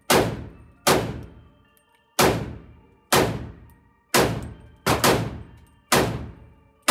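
Eight gunshots from a short-barreled AR pistol, taken for a friend's SIG Rattler with a 5.5-inch barrel, fired semi-automatically about one a second, with two in quick succession about five seconds in. Each shot is followed by a long echo off the indoor range.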